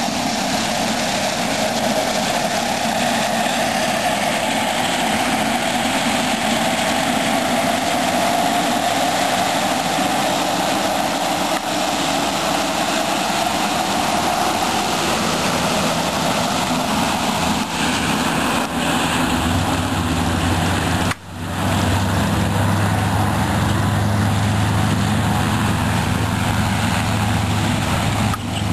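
Aviatika ultralight's propeller engine running as it taxis: a loud, steady aircraft-engine rush. About two-thirds of the way through, a deeper steady engine hum comes in, and the sound drops out for a moment once.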